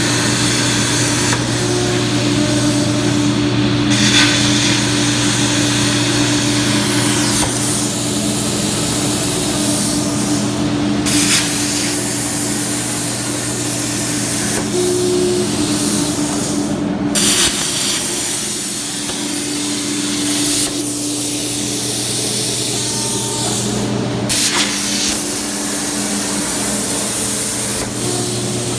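CNC track cutter's torch cutting through 3/8-inch steel plate: a steady, loud hiss over a steady machine hum, the hiss thinning briefly a few times.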